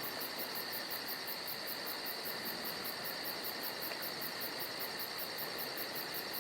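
Crickets chirping steadily: a continuous high trill with a faster, very high pulsing chirp about five times a second.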